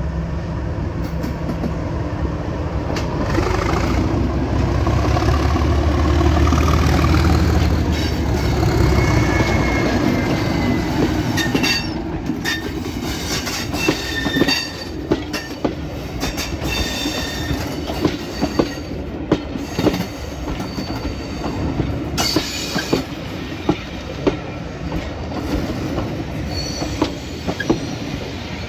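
Class 37 diesel locomotive's English Electric V12 engine passing close by, its heavy low rumble loudest about six to eight seconds in, then its train of coaches rolling past with repeated wheel clicks over the rail joints and short, high wheel squeals.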